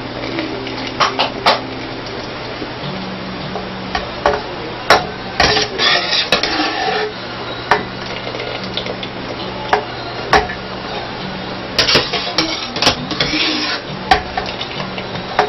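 Metal kitchen utensils clinking and scraping against pots and bowls in irregular knocks, with busier clattering about six seconds in and again from about twelve to fourteen seconds in. A steady low hum runs underneath.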